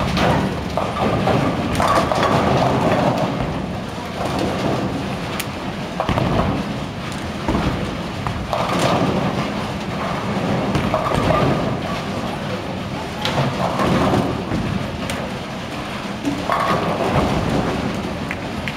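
Bowling alley din: bowling balls rolling down the lanes with a steady rumble and pins crashing several times as balls hit them across the lanes.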